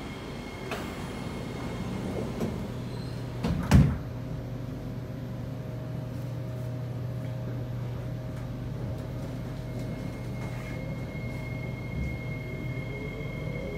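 Inside a Kawasaki C751B metro train: the sliding doors close with a loud thud about four seconds in, then the car stands with a steady low hum. Right at the end, a rising whine begins as the train starts to pull away.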